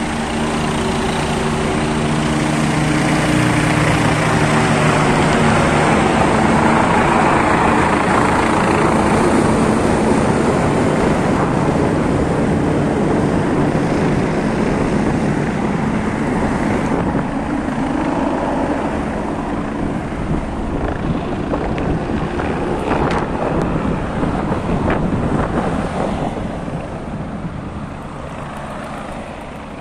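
Race-convoy vehicles (support cars and an ambulance van) passing at speed under a loud steady engine drone. The drone swells over the first several seconds and slowly eases off toward the end.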